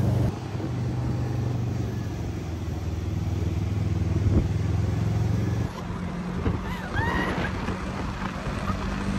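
Small go-kart engines running steadily while the karts drive along a street, a low drone that shifts to a higher steady tone a little past halfway through.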